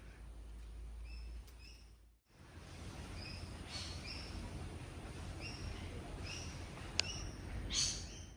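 Birds calling with short, repeated high chirps over a steady low rumble of outdoor background noise. The sound drops out briefly about two seconds in, and a single sharp click comes near the end.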